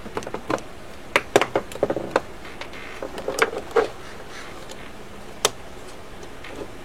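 Scattered small clicks and taps of metal parts and tools as a mortise lock is handled and taken apart, in short clusters with pauses between.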